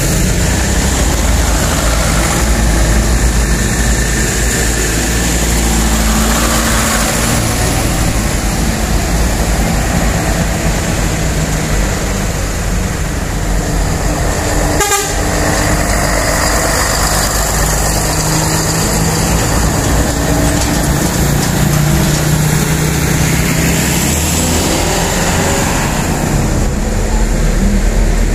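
Heavy loaded sugarcane trucks passing close by one after another, their diesel engines running loudly under load on a steep climb. There is a brief click about halfway through.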